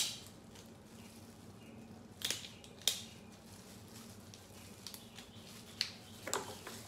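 Kitchen shears snipping through snow crab leg shells, the shell cracking. There is a sharp crack right at the start, then a pair of snips about two seconds in and a few more crunches near the end.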